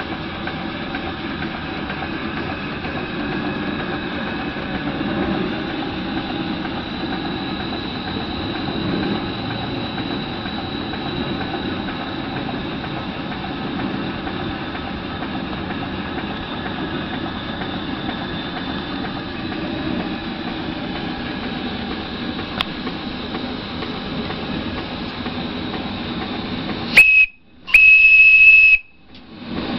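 Antique horizontal steam engine running steadily on live steam, over the steady roar of its boiler's gas burner. Near the end the boiler's steam whistle blows twice, a short toot and then a longer high blast of about a second.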